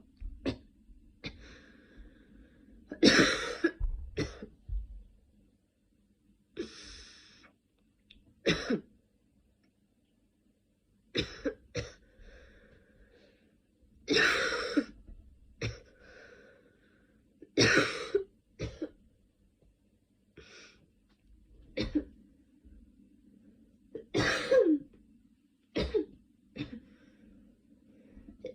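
A person sick with a cold coughing repeatedly, with some throat clearing. The coughs come as single coughs and short fits every second or two, with the loudest fits a few seconds in and near the middle.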